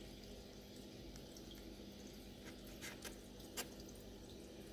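Faint aquarium sounds: small drips and trickling water over a steady low hum. A few sharper ticks come a little past halfway, the loudest about three and a half seconds in.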